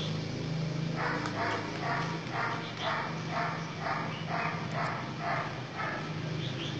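Large dog panting rhythmically, about two breaths a second, over a steady low hum.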